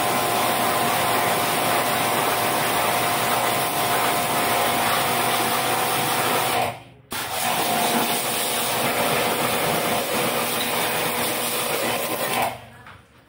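MHLD 358C 1800 W electric high-pressure washer running, its water jet hissing against an air conditioner's outdoor unit over a steady motor whine. It cuts out for about half a second around the middle, starts again, and stops near the end.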